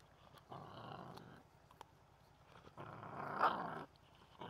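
Dogs growling at each other over shared food: two rough growls about a second long, the second louder, and a third starting near the end.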